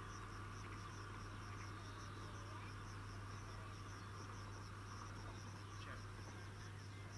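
Field insects chirping faintly: an even train of high pulses, a few each second, over a faint steady low hum.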